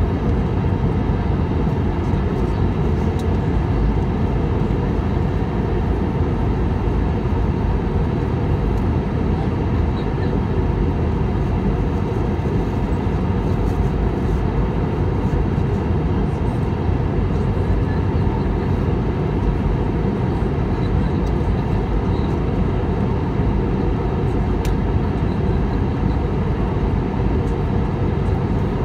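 Steady cabin noise inside an Airbus A319 in flight on its approach: the low, even sound of the jet engines and air rushing past the fuselage, heard from a window seat over the wing, with a faint steady whine above it.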